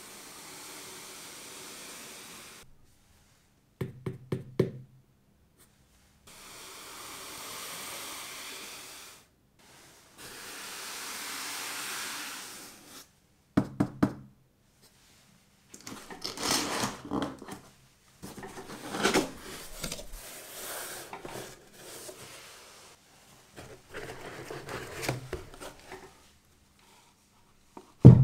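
White-gloved hands working a cardboard shotgun box. Gloves slide over the cardboard in long smooth sweeps, with two short clusters of tapping. Then comes irregular rustling of cardboard and fabric as the box is opened and the cloth-wrapped barrel is handled, and a loud thump near the end.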